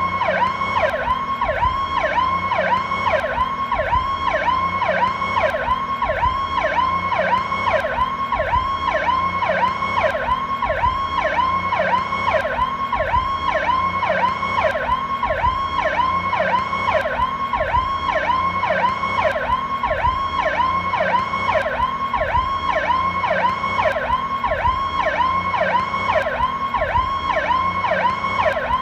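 Ambulance PowerCall electronic siren in a fast cycling wail. The pitch sweeps down and back up a little over twice a second, evenly and without a break, over a low rumble.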